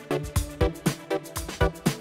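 Electronic background music with a steady, driving beat of about four hits a second.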